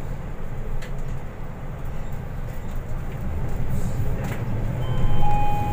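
Inside a Euro VI MAN NL323F city bus on the move: a steady low drone from the engine and drivetrain, with road noise. Near the end a steady high electronic beep starts.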